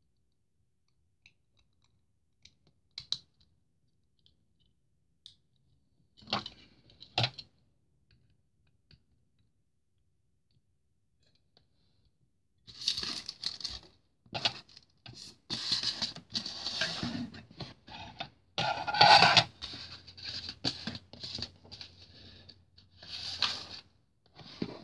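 Hand-handling of a plastic model airplane and its packaging: a few small clicks and knocks, then from about halfway a long stretch of plastic rustling, crinkling and clicking as parts and wrapping are handled.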